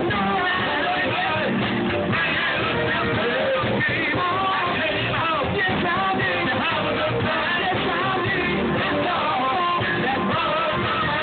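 Live band playing through a PA, with guitar, and a man singing into a microphone.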